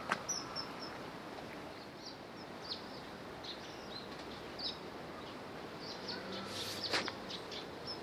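Birds giving many short, high chirps over a steady background hiss, with a sharp click at the very start and another about seven seconds in.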